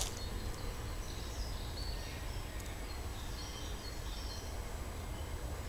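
Outdoor ambience: a steady low wind rumble on the microphone with faint, scattered birdsong.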